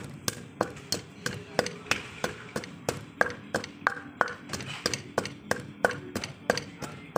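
Wooden pestle pounding red chilies in a clay mortar, a steady knock about three times a second: the first pounding stage of Thai papaya salad (som tam).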